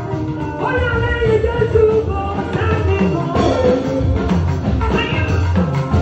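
Live gospel music: a woman singing through a microphone over a band with a steady bass and drum beat.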